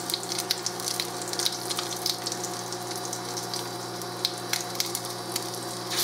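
A salmon patty frying in a hot pan, sizzling with a dense, irregular crackle of small pops over a steady low hum.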